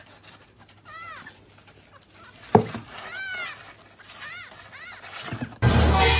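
A cat meowing about four times in short rising-and-falling calls. There is a sharp knock about two and a half seconds in, and a loud rushing noise near the end.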